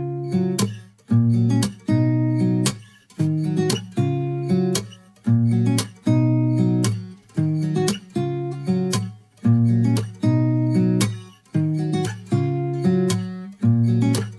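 Background music: acoustic guitar strummed in a steady rhythm, repeating chords about twice a second.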